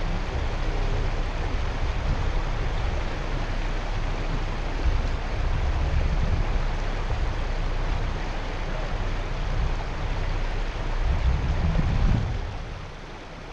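Steady rumble and hiss of a yacht under way through calm water. The low rumble eases off about twelve seconds in.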